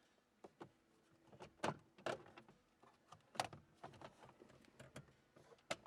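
Scattered light clicks and knocks of parts being handled in a truck's dashboard while the instrument cluster is worked loose, about half a dozen separate sharp sounds.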